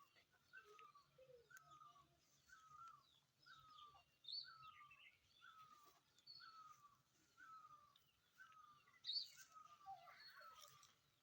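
Faint birdsong: one bird repeats a short, falling call about once a second, while other birds chirp higher and more irregularly. The loudest of these chirps come about four seconds in and again just after nine seconds.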